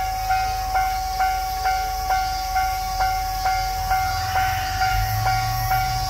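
Japanese level-crossing warning bell sounding 'kan-kan', a ringing electronic chime repeating evenly at a little over two strikes a second while the crossing is closed for an approaching train. A low rumble joins in about four seconds in.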